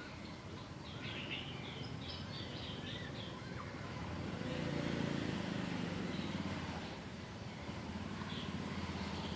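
Outdoor background noise with a quick series of small bird chirps about a second in, and a low rumble swelling up midway, like a passing engine.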